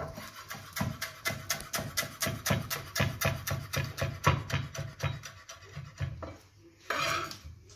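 Background music with a quick, steady beat and a low bass line.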